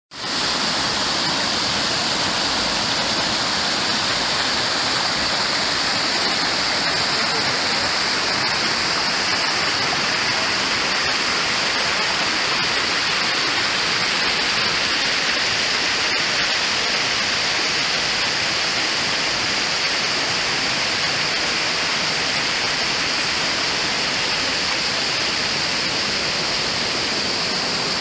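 Rocky stream rushing and splashing over stones in small cascades: a steady, unbroken rush of water that starts at once and holds level throughout.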